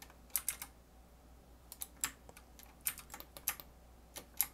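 Computer keyboard keystrokes: quick taps in short irregular clusters with brief pauses between them, as hotkeys are pressed.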